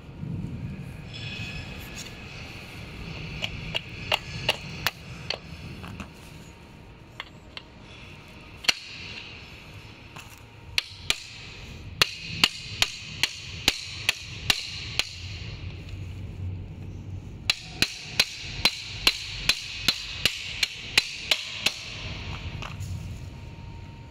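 Hammer tapping a steel punch to drive the hinge pin into an electric scooter's folding mechanism: runs of sharp metallic taps with a short ring, about three a second, one run near the start and two longer runs in the second half.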